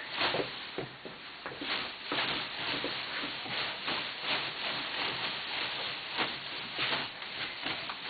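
Satin costume ribbons rustling and swishing as the wearer spins around, in repeated swells of hiss broken by short sharp rustles.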